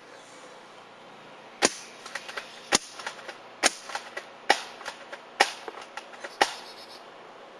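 Classic Army M15A4 spring-action airsoft rifle firing six sharp shots, roughly one a second, with fainter clicks between the shots.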